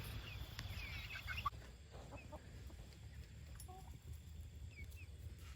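Pet chickens clucking faintly, a few short calls scattered through, over a steady low background rumble.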